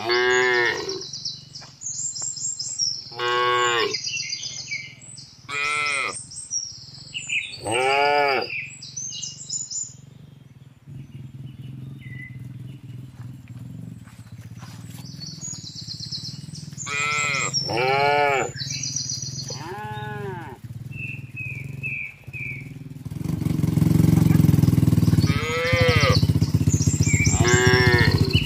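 A herd of cattle, calves among them, mooing again and again as they walk, each call lasting about a second and rising then falling in pitch. The calls come in clusters, and a steady low rumble joins in about two-thirds of the way through.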